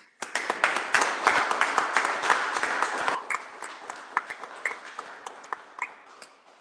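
Audience applauding: a dense round of clapping for about three seconds, then thinning to scattered claps that die out near the end.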